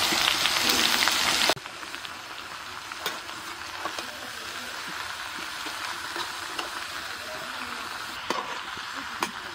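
Vegetables frying in hot mustard oil in a kadhai: a loud sizzle that drops suddenly about a second and a half in to a quieter steady sizzle. A few light clicks of a spoon stirring against the pan come through it.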